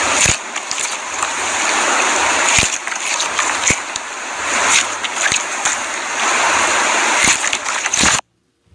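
Clear slime being squished and worked by hand: a dense wet crackling with many small sharp pops and clicks. It cuts off abruptly near the end.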